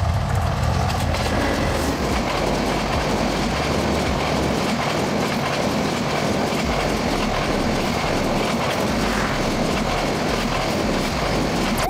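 Intercity passenger train running along the track: a steady rumble and rush of wheels on rails, heaviest in the low end during the first second.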